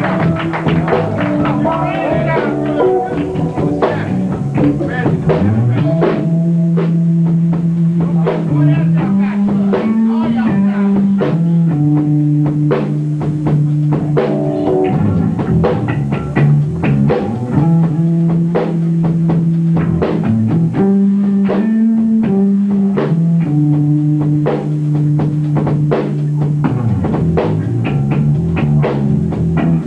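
Band music with guitar and drum kit: steady drum hits over a low line of long held notes that repeats about every eleven seconds.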